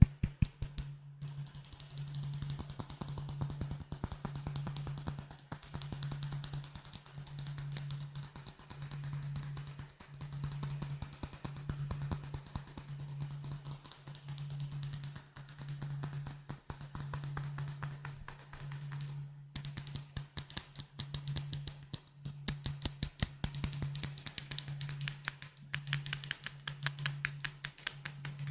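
Fast tapping on glass bottles: a dense run of quick, sharp clicks with a short break about two-thirds of the way through. A low throb repeats about once a second underneath.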